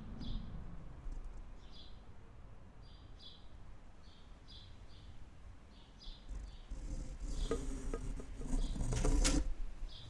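Tropical forest ambience: short high chirps from a small creature repeat every half second to a second over a constant low rumble. From about two-thirds in, a louder rushing swell with a few sharp crackles builds, then drops away just before the end.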